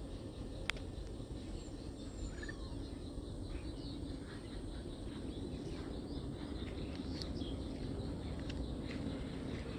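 Outdoor ambience: a steady low rumble with faint bird chirps and a few sharp clicks, one a little under a second in and several more in the second half.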